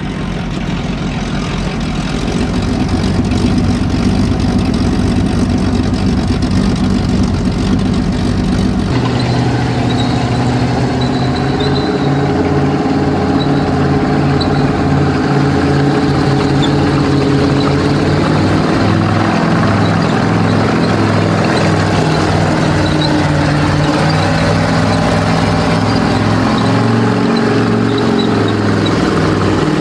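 M5 Stuart light tank running on its twin Chevrolet 350 V8 engines as it drives along a dirt track, with a steady engine note. The sound changes sharply about nine seconds in, to a stronger, deeper engine note that holds to the end.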